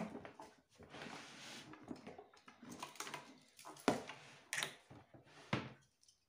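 Handling noise from opening a hard-sided projector carrying case: a knock as the case is unfastened, rubbing and scraping as it is worked open, then several sharp knocks near the end as the lid swings down and lands flat on the table.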